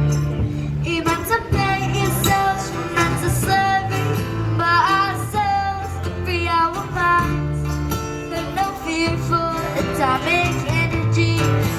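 A busker's live song: a singer's voice with wavering, sliding notes over guitar accompaniment and a steady low bass line.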